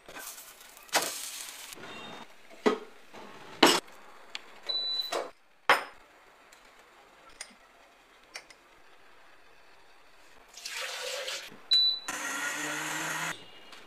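A string of kitchen sounds: a spatula working batter in a nonstick pan, sharp clinks and knocks, and liquid poured into a glass. Near the end an AUX blender beeps as its panel button is pressed and its motor runs for about a second and a half.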